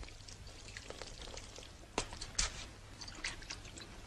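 Faint, scattered small splashes and clicks of hands being washed in a bathroom sink, with two louder splashes about two seconds in.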